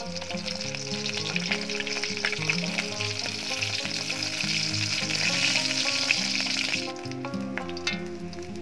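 Half-dried salted scad sizzling as it fries in hot oil in a wok; the sizzle drops away about seven seconds in. Background music plays underneath.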